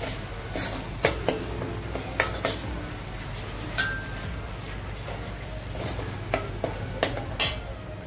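Metal spoon stirring a thick masala paste frying in oil in a metal kadhai, clinking and scraping against the pan about ten times. One knock, about four seconds in, rings briefly.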